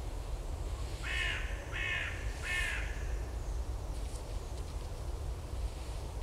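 A crow caws three times in quick succession, starting about a second in. Under it runs a steady low rumble of wind on the microphone.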